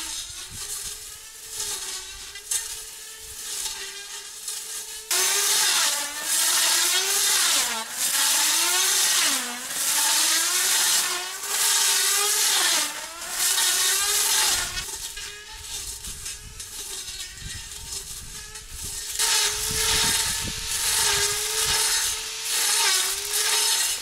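Cordless electric grass trimmer running with a steady motor whine whose pitch wavers and dips as it bogs in the grass, with a hiss of tall grass being cut in repeated swings, about one a second. It is fainter for the first few seconds, then close and loud.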